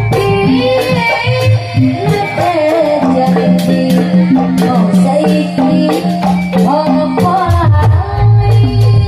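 Live Sundanese ronggeng music. Sharp kendang hand-drum strokes drive the rhythm under a winding, gliding sung melody and sustained low accompanying tones.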